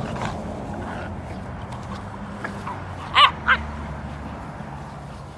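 An American Bully and an American Pit Bull Terrier puppy play-fighting, with two short, sharp barks in quick succession about three seconds in.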